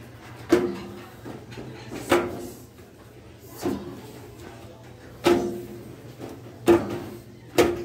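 Footsteps going down a staircase: six heavy thuds, each with a short ring, coming every second or so.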